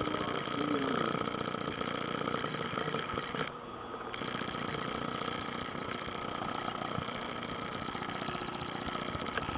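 Steady din of a room full of running vintage pinball machines: a constant hum and buzz under a busy, rapid high chatter that drops out for about half a second about three and a half seconds in.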